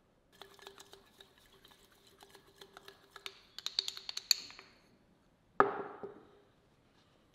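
Painting tools clinking and tapping at the palette: a quick run of small ringing taps that grow louder, then one sharp knock about two-thirds of the way in.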